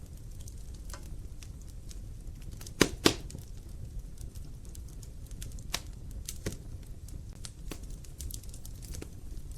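Wood logs burning in a fireplace: a low steady rumble with scattered crackles, and two loud pops close together about three seconds in.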